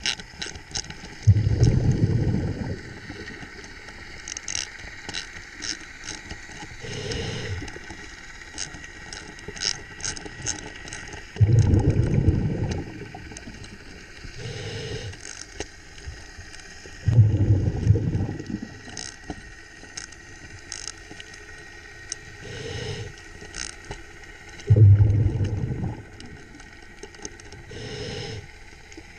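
Scuba regulator breathing underwater: a loud bubbling rumble of exhaled air every few seconds, four in all, with quieter inhalation hisses between. Light metallic clicks of a hand ratchet working a bolt on the drop keel's cable shackle run underneath.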